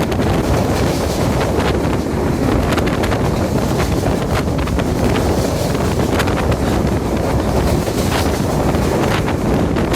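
Train running at speed: a steady rumble with wind buffeting the microphone, and scattered clicks running through it.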